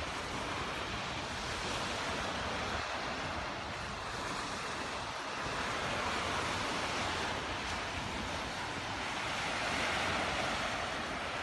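Baltic Sea surf washing onto the shore in a steady rush, swelling louder midway and again near the end as waves break.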